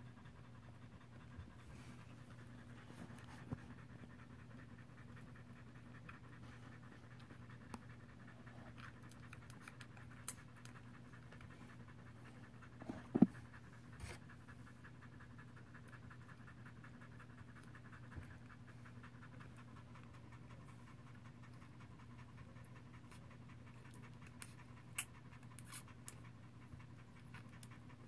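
A standard poodle in labour panting rapidly and faintly over a steady low hum, with a few light clicks and one short, sharp sound about 13 seconds in.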